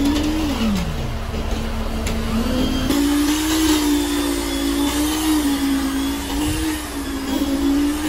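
A motor running with a steady hum that drops sharply in pitch about half a second in, climbs back about three seconds in, then holds, wavering slightly.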